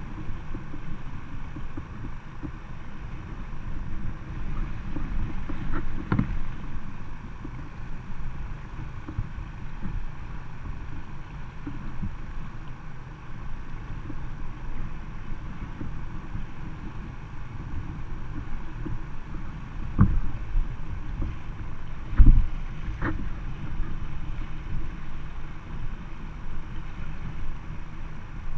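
Fast, shallow river water rushing and splashing against a small inflatable boat as it is pulled through the current, with wind on the microphone. A few dull knocks land on the boat, the loudest about two-thirds of the way through.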